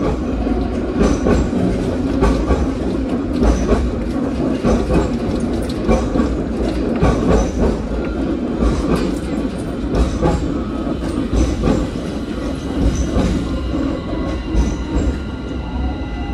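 Hong Kong double-decker tram with VVVF traction, heard from on board, running on street track: a steady rumble of the wheels with frequent clicks and clatter over the rails. Near the end a whine sets in that falls in pitch, the traction motors' tone as the tram slows.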